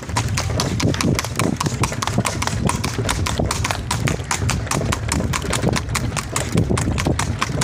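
A horse's hooves clopping on an asphalt road as it pulls a wooden cart, in a quick, even rhythm of about five or six strikes a second, over a steady low rumble.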